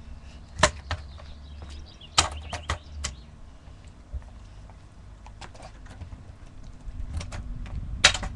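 Oxelo freestyle kick scooter rolling over paving bricks with a low rumble, and sharp clacks as its wheels and deck hit the pavers, the loudest about half a second in and near the end.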